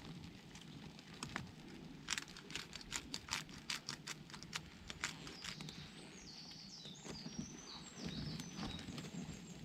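Open wood campfire, burning cedar, crackling with an irregular run of sharp pops. A few short high chirps come in near the end.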